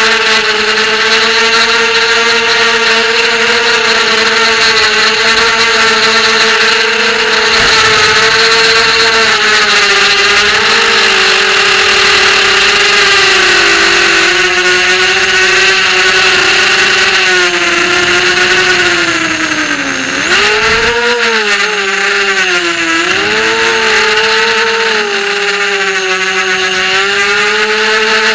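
FPV racing quadcopter's brushless motors and propellers whining in flight, heard from the camera on board. The pitch holds fairly steady for most of the time, then dips sharply about twenty seconds in and swings back up with the throttle changes.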